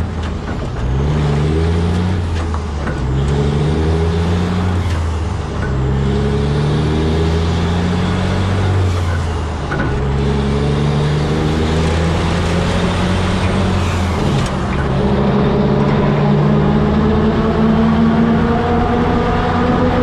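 Sterling tri-axle dump truck's diesel engine pulling a loaded-up tag trailer away from a stop and working up through the gears. Its pitch climbs and drops back at each upshift, several shifts in quick succession at first, then longer pulls in the higher gears. Tyre and wind noise run under it throughout.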